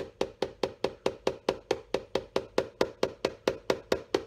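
Small hammer tapping a half-inch 18-gauge nail into the rubber top lift of a shoe heel, with quick, even light strikes at about five or six a second.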